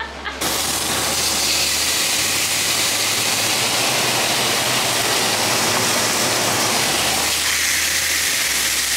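Steak sizzling in a smoking-hot cast-iron grill pan: a steady, dense hiss that starts abruptly about half a second in.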